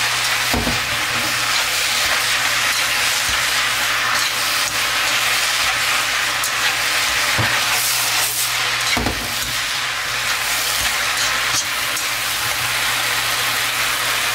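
Chow mein noodles, chicken and bean sprouts sizzling steadily in a hot wok as they are tossed and stirred, with a few knocks of the chopsticks and tongs against the pan.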